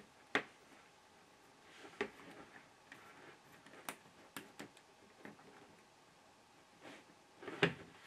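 Scattered sharp clicks and light knocks of a coaxial cable with metal F connectors and a splitter being handled on a tabletop, the loudest cluster coming a little before the end.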